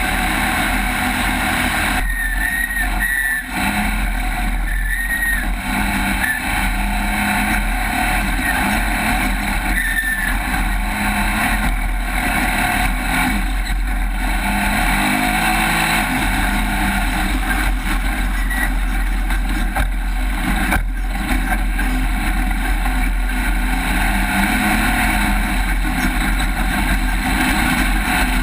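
Off-road race vehicle engine running hard at speed, its pitch rising and falling, over a steady loud rush of noise.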